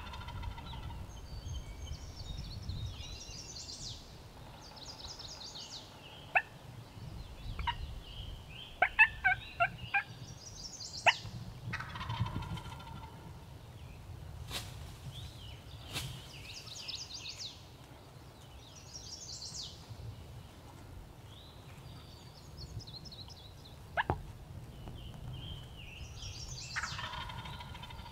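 Wild turkey gobbling again and again, a rattling call every few seconds. Short sharp clucking notes, the loudest sounds, come singly and in a quick cluster of four or five.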